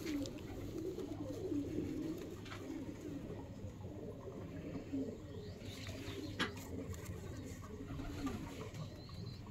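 Domestic pigeons cooing over and over in low, wavering warbles, with one sharp click about six and a half seconds in.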